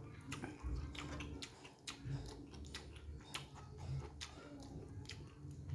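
A person chewing a mouthful of noodles and rice close to the microphone: a string of irregular, sharp wet mouth clicks, a few every second.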